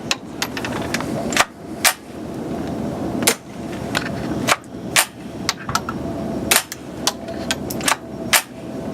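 Suppressed .22 rifle firing low-power subsonic rounds: a series of muffled shots without a supersonic crack, with smaller metallic clicks between them.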